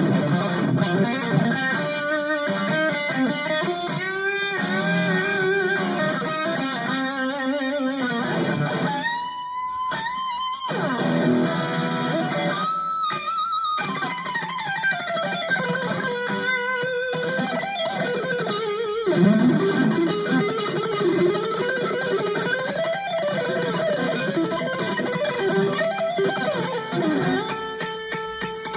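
Ibanez AZES40 electric guitar played through a Cuvave Cube Baby multi-effects unit: a lead line of single notes with string bends and vibrato. Held high notes with wide vibrato come about a third and about halfway through.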